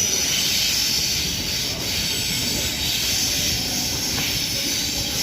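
Steady rumble and hiss of electric suburban trains at a station platform.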